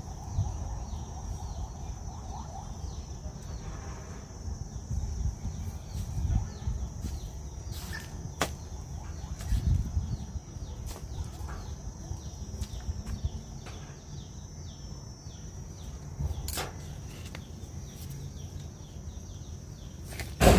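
Scissors snipping pepper elder stems: a few sharp, separate clicks over steady low rumbling and a faint high hiss.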